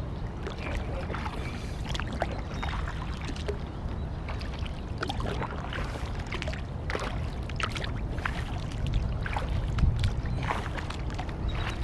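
Kayak paddling on a lake: the paddle blades dip and splash in the water, with irregular small splashes and drips over a steady low rumble.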